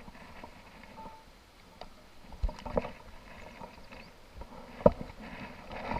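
A few sharp knocks and thumps over a low handling rustle: two close together about two and a half seconds in, and a louder single knock near five seconds.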